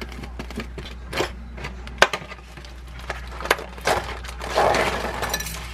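Plastic packaging being handled: scattered clicks and crackles as cling film comes off a plastic salad container and the container is opened. About four and a half seconds in comes a longer crinkle of a plastic-wrapped item.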